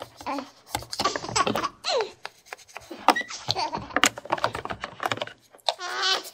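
A baby doll's recorded baby giggles and babbling, coming in short spells, among light clicks and taps of plastic toy pieces being handled.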